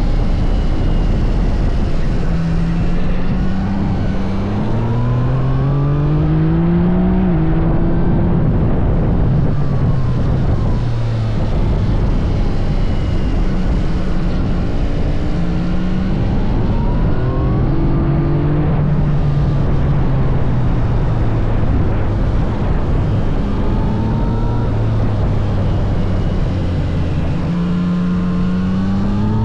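Yamaha MT-09 SP's inline-three engine under hard riding, its pitch climbing under acceleration and dropping at gear changes and on closing the throttle, several times over. A heavy rush of wind and road noise runs under it.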